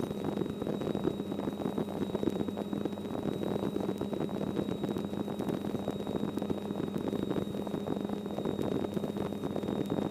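Light helicopter's engine and rotor running steadily, heard from inside the cockpit as a constant hum with a noisy whir over it.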